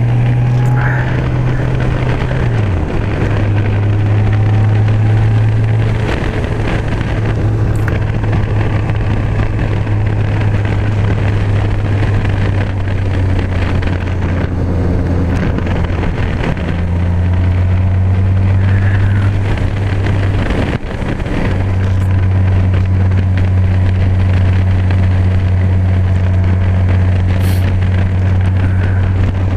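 Honda Gold Wing touring motorcycle cruising down a two-lane road: a steady low engine hum under rushing wind. The engine note steps down in pitch a couple of seconds in and shifts again about two-thirds of the way through.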